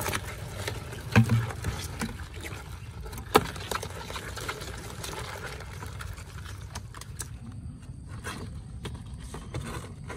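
Live crabs tumbling into a plastic basin with a little water, then their shells and legs clicking and scraping against the plastic in small scattered taps. Two sharper knocks stand out, about one and about three seconds in.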